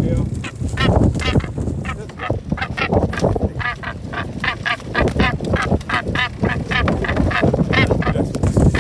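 Northern gannet giving harsh, honking calls over and over in quick succession, over a steady low rumble.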